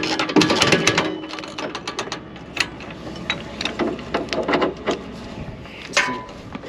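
Boat trailer's hand-crank winch being worked, its ratchet pawl clicking over the gear teeth: a fast run of clicks for about a second, then slower, irregular clicks.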